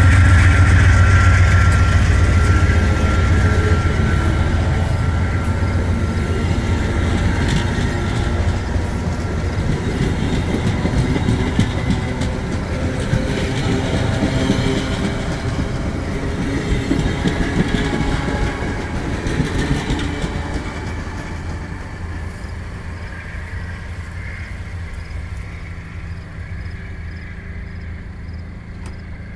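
A VIA Rail GE P42DC diesel locomotive goes past as it pulls out of the station, its low engine drone and a high steady whine loudest at first and fading within the first few seconds. Passenger coaches then roll by with wheel clatter and clicks over the rail joints. The whole train fades steadily as it pulls away.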